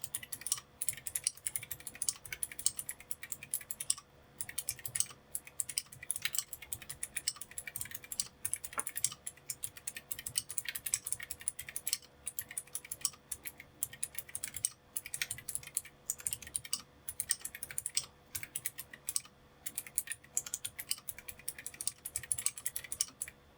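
Typing on an Akko ACR 75 Pro gasket-mount mechanical keyboard fitted with clicky TTC Golden Blue switches: a fast, continuous run of sharp key clicks with brief pauses every few seconds.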